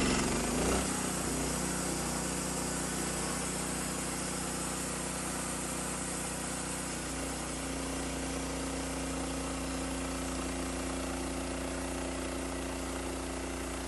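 Portable bandsaw sawmill's engine running steadily, with a brief louder surge in the first second.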